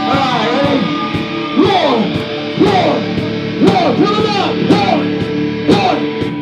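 Heavy metal band playing live, loud: electric guitar notes bending up and down in pitch over drums that hit about once a second.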